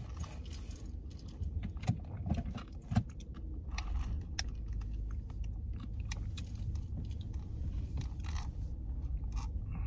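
Ice cubes clicking and rattling in a plastic cup of iced drink as the straw is worked around and sipped: many small irregular ticks over a low steady rumble.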